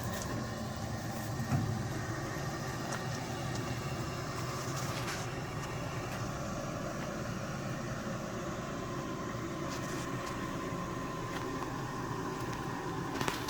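Steady running hum of a machine or engine, with a faint steady whine and a few light clicks or knocks.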